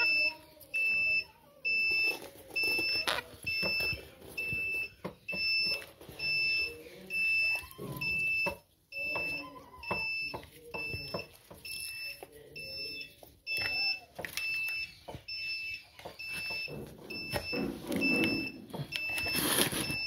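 An electronic beeper sounding a high, even beep over and over, a little more than once a second. Faint voices and handling noise sit under it.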